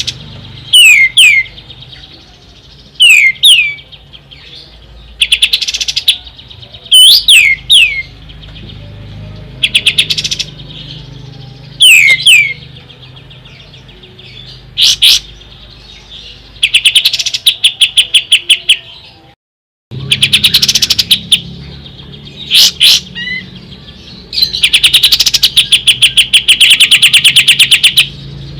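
Kapas tembak bird singing loudly in short bursts: quick whistled notes sweeping downward, alternating with fast rattling trills of rapid repeated notes lasting a second or two, the longest near the end. The sound cuts out for a moment about two-thirds of the way through.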